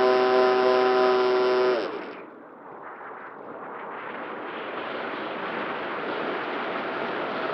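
Electric motor and propeller of a small RC flying wing running with a steady high whine, then throttled off a little under two seconds in, its pitch dropping away. After that, a hiss of wind that slowly grows louder.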